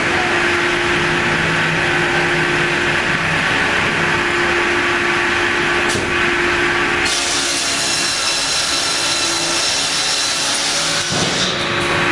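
Circular saw blade of a sliding-table log sawmill cutting through a round log: a steady hum under loud hissing saw noise. The sound of the cut shifts about seven seconds in.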